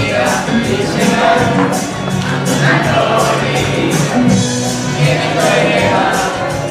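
A group of young voices singing a Japanese song in unison over an accompaniment with a steady beat of about two ticks a second.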